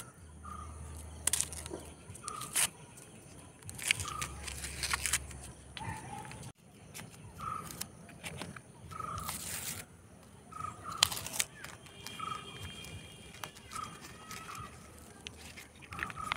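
Paper wrapping of a roll-cap pack crinkling and tearing as it is peeled open by hand, in short irregular crackles. Behind it, a bird repeats a short call about once a second.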